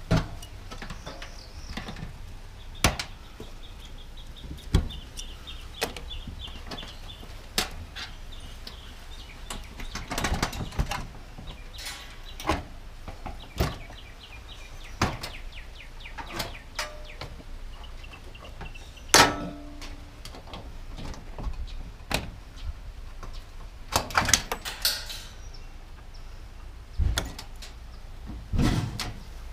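Irregular knocks, clunks and thuds of objects being handled and set down, some sharp and loud, over a steady low rumble.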